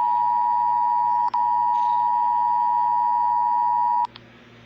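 Emergency Alert System attention signal: a steady, loud electronic alert tone near 1 kHz. It breaks briefly about a second in and cuts off sharply about four seconds in, followed by a click and low hiss, just before the emergency message begins.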